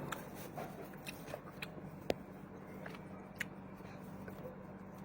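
A person eating close to the microphone: chewing and mouth sounds, with scattered small sharp clicks. The sharpest clicks come about two seconds in and again about three and a half seconds in.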